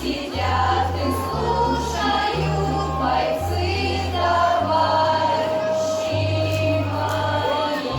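A choir singing a song with instrumental accompaniment, the bass stepping to a new note about every second.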